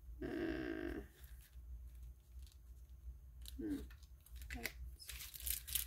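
Sheets of stickers being handled and flipped through: a crisp rustle and crinkle of paper and plastic, densest near the end. A short hummed 'hmm' comes just after the start, and two brief murmurs of voice come around the middle.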